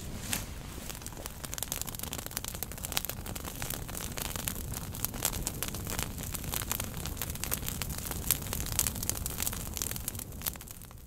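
Sound-effect crackling of fire and sparks, many quick crackles over a low rumble, fading out near the end.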